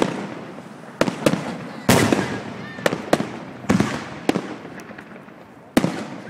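Fireworks exploding in a rapid irregular string of sharp bangs, about nine in all, each trailing off in a fading crackle and echo. The last loud bang comes near the end.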